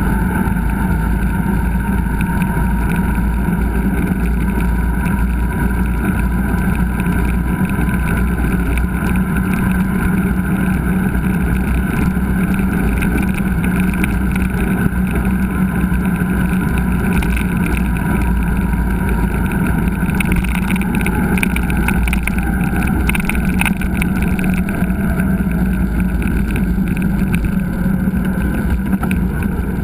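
Steady wind and riding rumble on a mountain bike's action camera while the bike rolls along the trail, with scattered crackles of the bike jolting over rough ground in the second half.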